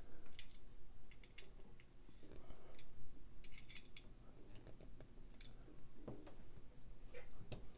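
Scattered small clicks and light metallic taps from handling a folding knife's titanium handle and pivot hardware while fitting the pivot by hand during reassembly.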